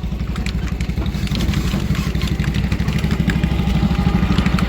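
Engine of a farm tour ride running steadily with a low, fast pulsing throb, with light clicks and rattles from the moving ride.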